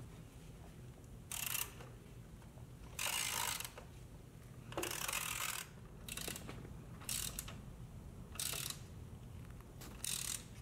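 Hand ratchet wrench clicking in about seven short bursts as the nuts are run down and snugged on the motorcycle rear shock's mounting bolts, before final torquing.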